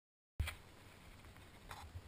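Silence, then a sharp click as the sound cuts in, followed by faint low rumble and hiss from a handlebar-mounted GoPro's microphone, with a brief rustle near the end.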